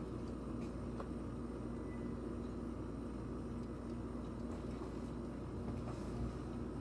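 Steady low background hum of an indoor room, with a faint constant tone and a few light clicks.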